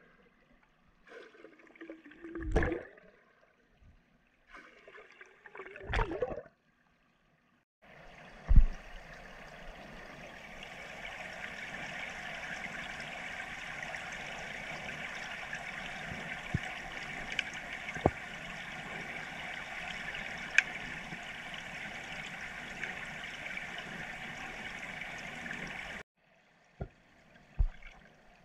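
Air bubbles heard underwater in a swimming pool: two short bubbly bursts of exhaled air in the first six seconds, then a steady watery hiss with scattered sharp clicks that cuts off abruptly near the end.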